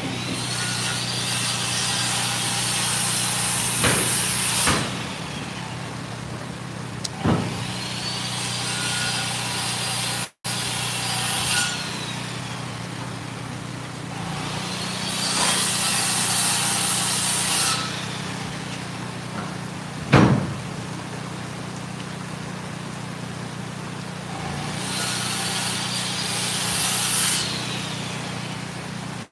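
Corded circular saw cutting lumber, four separate cuts: each time the blade winds up with a whine, runs noisily through the wood for a few seconds, then winds down. Knocks of boards come between the cuts, over a steady low hum.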